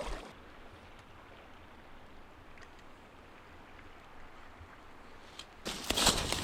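Faint steady background noise. Near the end a loud rough noise suddenly sets in, reaching from low to very high pitches, and keeps going.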